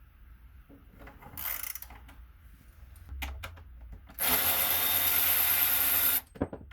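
A power drill with a hex bit runs steadily for about two seconds and stops suddenly, driving out a motorcycle brake caliper bolt. It follows a few light tool clicks and scrapes.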